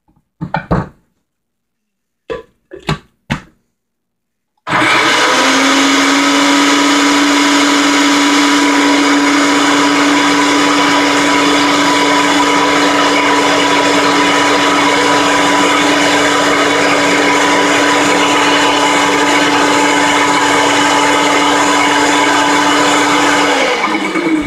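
Countertop blender running at speed on raw cashews and water being made into cashew cream. It starts about five seconds in with a quick spin-up, runs steadily with a steady motor hum, then is switched off near the end and winds down with falling pitch. A few brief sounds come before it starts.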